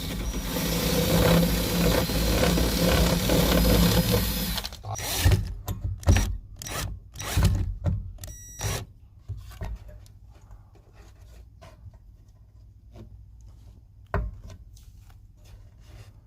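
Power drill running steadily for about four and a half seconds, then a string of sharp knocks and clicks that come further apart and fade.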